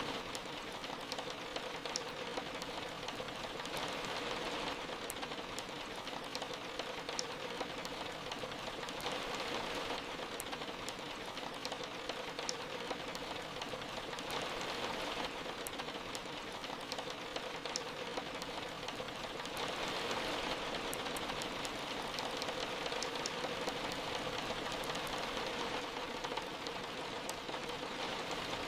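Soft rain falling steadily, a continuous hiss with sharp drop ticks scattered through it and gentle swells in intensity.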